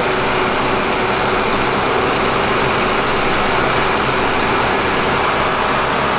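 Flood-control drainage pumps at a pumping station running, a steady loud mechanical drone with a faint hum.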